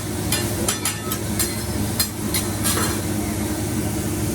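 Hibachi chef's spatulas clicking and scraping against the flat-top griddle, about eight sharp strikes in the first three seconds, over food sizzling on the hot plate and a steady low hum.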